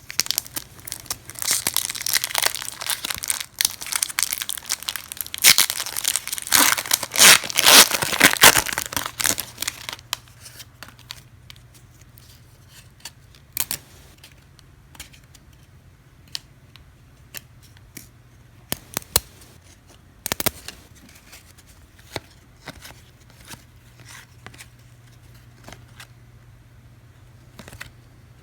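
A trading-card pack wrapper being torn open and crinkled for several seconds, followed by sparse light clicks of cards being handled and flipped through.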